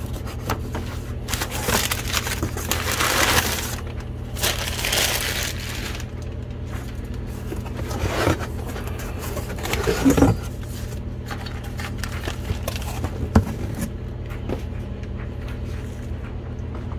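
Packing paper rustling and crumpling as a cardboard box is unpacked, heaviest in the first several seconds, then a few handling scrapes and a sharp knock about thirteen seconds in as a cylinder head is lifted out and set down, over a steady low hum.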